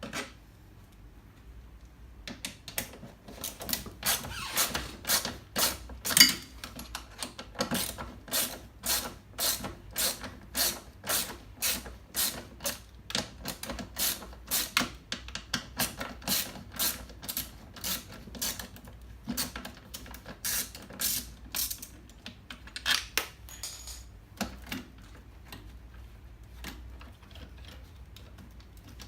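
Hand ratchet clicking in a steady rhythm of about two strokes a second, working the bolts on a washing machine's spin motor, stopping about three quarters of the way through.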